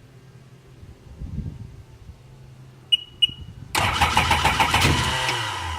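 Two short high beeps, then the 2002 Sea-Doo GTX's Rotax 4-TEC engine is cranked by its electric starter for about a second and a half without firing, and spins down with a falling tone. This is a cranking, no-start condition.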